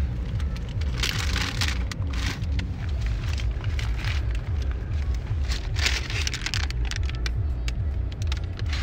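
Crumpled paper fast-food bags rustling and crinkling as hands dig through them, in short bursts, over a steady low rumble of the car.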